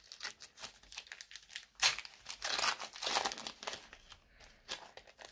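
A trading-card packet wrapper being torn open and crinkled by hand: irregular rustling and crackling, busiest from about two seconds in.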